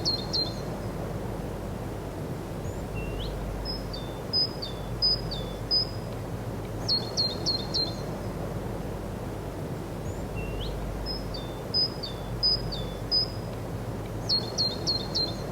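A songbird singing short phrases of quick, high notes, each phrase repeating every few seconds with gaps between, over steady low background noise.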